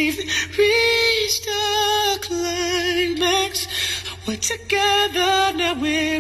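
Song with a female voice singing long, wavering notes with vibrato, over a steady low bass.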